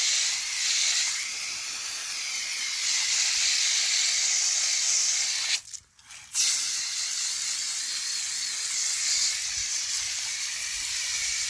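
Water jet from a hose nozzle rinsing foaming coil cleaner out of a finned copper-tube coil: a steady hiss of spray that cuts off for under a second about halfway through, then resumes.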